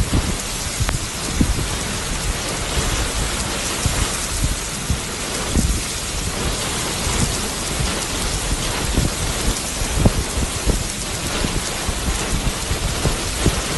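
Heavy wind-driven rain pouring down in a storm, a dense steady hiss, with irregular low gusty rumbles from wind buffeting the microphone.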